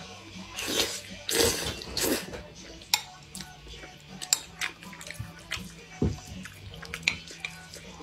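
Close-miked eating of saucy tofu and rice from a metal spoon: three loud wet slurps in the first two seconds, then chewing with many short, sharp mouth clicks and smacks.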